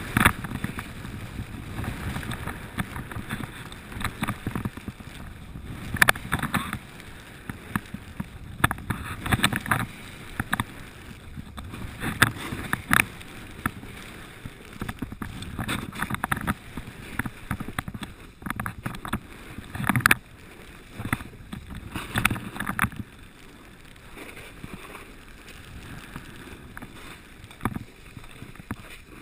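Snowboard edges scraping and hissing over packed snow during a descent, swelling and fading with each turn.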